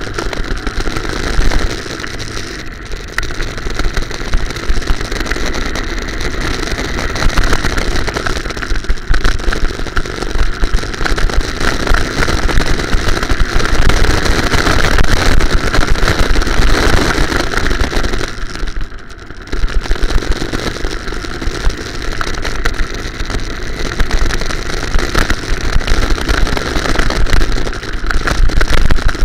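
Go-kart engine running at speed through a lap, heard onboard from the driver's seat. The noise dips briefly a little after two-thirds of the way through.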